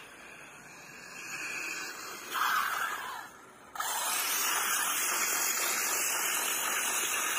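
Arrma Kraton 6S RC truck running hard on paving stones, a brief burst about two and a half seconds in. Then, from a sudden start, a loud steady hiss of its Schumacher tyres scrubbing and sliding on the pavers.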